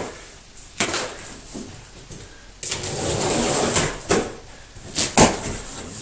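A large cardboard shipping box being handled and opened: sharp knocks and thumps on the cardboard, with a stretch of scraping and rustling about halfway and two loud knocks near the end.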